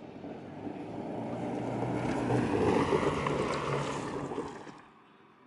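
Ziesel tracked electric off-road wheelchair driving past on gravel: a motor whine with its rubber tracks crunching over the stones. It grows louder to a peak about halfway through, then fades away near the end.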